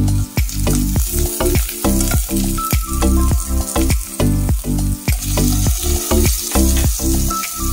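Onions and ginger-garlic paste sizzling as they fry in oil in a nonstick pan, under background music with a steady beat.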